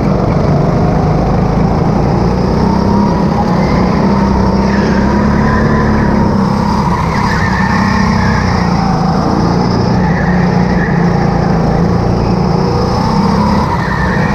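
Go-kart engine running hard from onboard, its pitch rising and falling again and again as the kart accelerates and slows through the corners, with other karts running close by. Short tyre squeals come in a few times.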